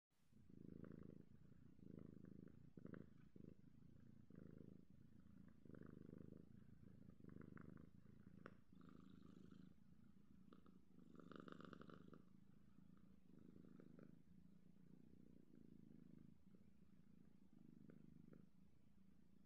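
British Shorthair kitten purring while kneading a fleece blanket, the purr swelling and fading about every second and a half with each breath.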